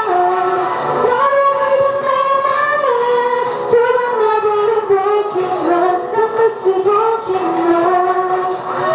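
A woman singing a Korean song solo into a handheld microphone, amplified, with long held notes.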